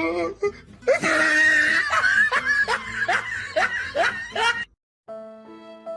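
A person laughing hard in a run of quick repeated ha-ha strokes that cuts off sharply. About five seconds in, soft music with long held notes begins.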